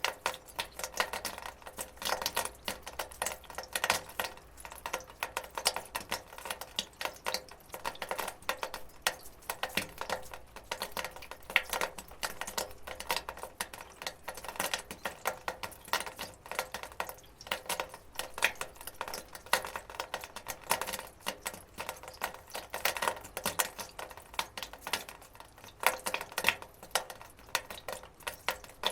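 Water dripping and trickling onto a metal gutter: many irregular sharp drips and taps, several a second, bunching into busier spells now and then.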